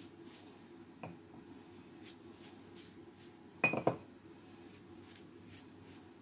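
Kitchenware clinking: a light tap about a second in, then a short clatter with a brief ringing clink about three and a half seconds in, over faint steady room hum.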